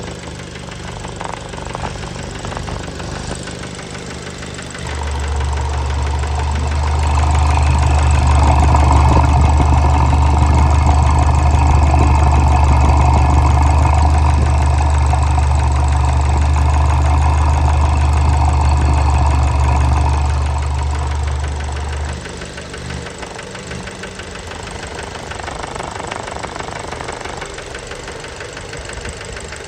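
Fiat Bravo 2's 1.4 T-Jet turbocharged four-cylinder petrol engine running with a knock. It idles, is held at higher revs from about five seconds in, then drops back to idle near the end. The knocking is from worn connecting-rod bearings (rod knock), as the owner later concluded.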